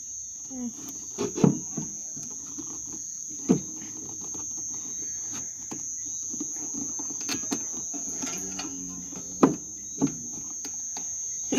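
Crickets chirring in one steady high drone, with a few sharp taps and clicks cutting in now and then.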